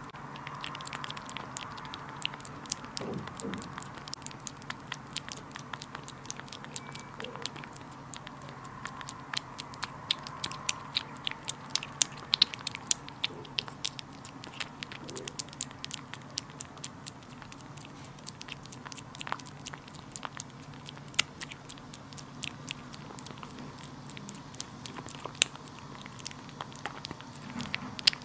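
Short-legged blue-golden kitten eating raw meat and raw egg yolk from a plate: a steady run of small, irregular smacking clicks as it chews and licks, a few of them louder.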